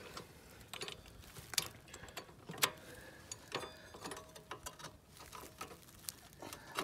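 Scattered metallic clicks and clinks of hand tools being worked on a small go-kart's engine and frame, with one sharper clink about two and a half seconds in.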